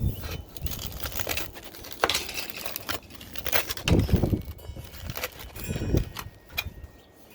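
Freshly baked wood-fired pizza being cut in half: the crisp crust crackles and crunches under the blade in irregular snaps, with heavier low thumps about four and six seconds in.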